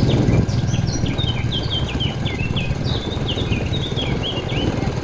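Small birds chirping, a quick string of short high chirps one after another, over a steady low rumble.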